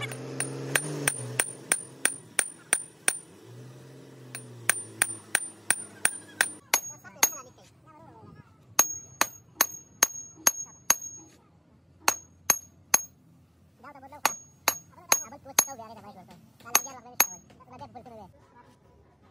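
Hammer blows on the steel output flange of a truck gearbox: sharp, ringing metal strikes at about three a second, in five runs with short pauses between.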